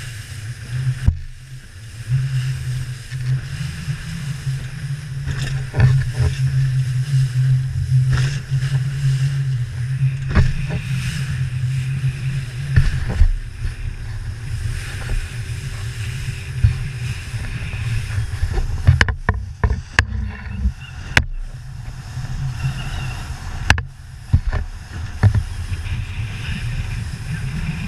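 Outboard engine of a Joker Clubman 21 RIB running steadily under way through big waves, with repeated sharp thumps as the hull hits the waves. The engine sound dips briefly a few times past the middle.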